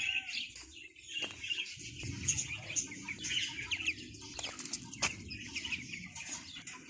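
A flock of chickens clucking, with many small birds chirping and calling throughout.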